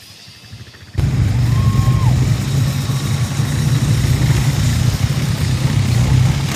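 A vehicle engine running steadily with a loud low rumble, cutting in abruptly about a second in.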